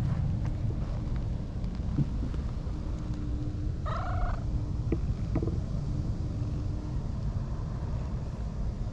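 Wind buffeting the microphone, a steady low rumble, with one short cat meow about four seconds in.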